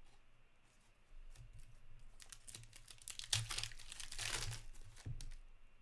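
A foil hockey card pack wrapper being torn open and crinkled by hand, loudest about three to four and a half seconds in.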